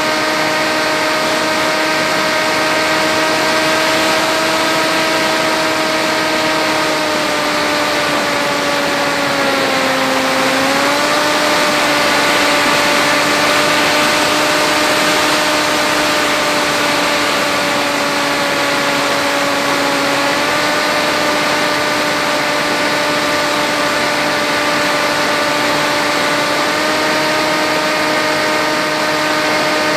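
Electric motor and propeller of an FX-61 flying wing running steadily in flight, picked up by the onboard camera with a rush of wind noise. The pitch dips briefly and recovers about ten seconds in, then steps down slightly about twenty seconds in.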